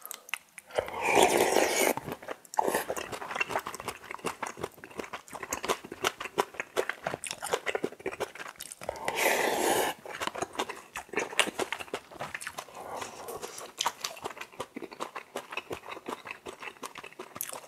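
Close-miked eating of cup ramyeon noodles soaked with rice. There are two loud slurps from a spoon, about a second in and about nine seconds in, with wet chewing and lip smacks between them.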